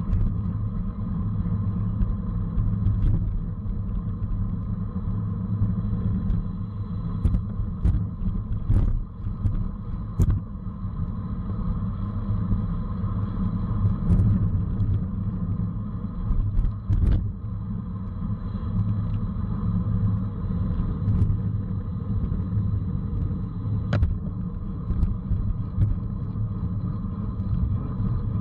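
Steady wind rush over the microphone and road rumble from a racing bicycle at speed, with a few sharp clicks scattered through.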